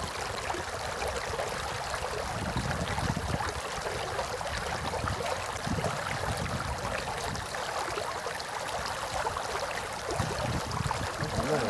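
Small river running: a steady rush of flowing water, with irregular low rumbling underneath.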